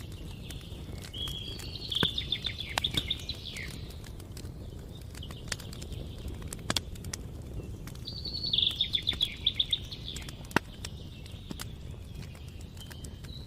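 Wood fire crackling, with scattered sharp pops over a low steady rumble. A songbird sings a fast trilled phrase twice, about two seconds in and again about eight seconds in.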